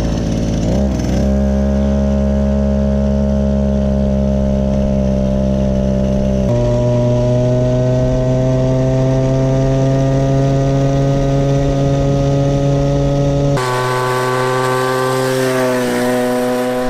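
Two-stroke cut-off saw engine driving a ride-on toy car, running loud at high revs, its pitch creeping slowly upward as the car gains speed. The sound jumps abruptly a few times where close onboard and more distant recordings are cut together.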